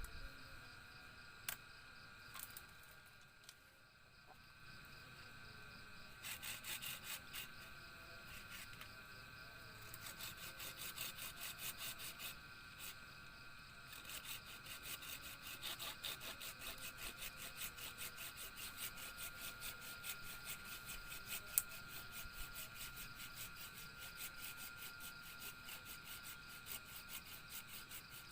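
Hand-sawing or scraping of wood: rhythmic strokes, about three a second, starting about six seconds in and carrying on, over a steady high insect drone.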